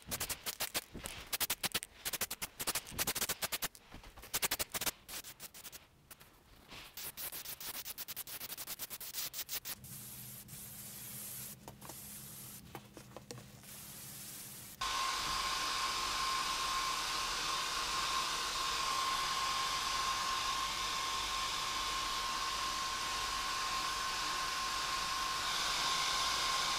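An aerosol primer can rattles and hisses in many short bursts as it is sprayed. Then a small air compressor hums while an airbrush hisses. From just past halfway a Remington hair dryer runs steadily, with a whine, drying the paint; this is the loudest part.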